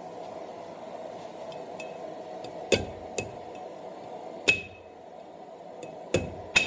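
Ball-peen hammer striking a small steel S-hook on an anvil's horn: five blows at uneven intervals, several followed by a short high metallic ring, over a steady low hum.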